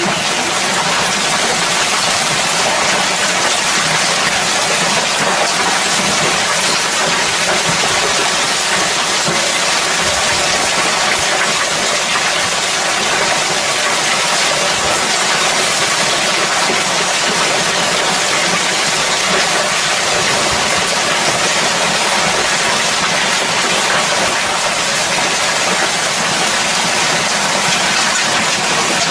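Hailstorm: hail and heavy rain pelting down in a loud, dense, steady rush of noise.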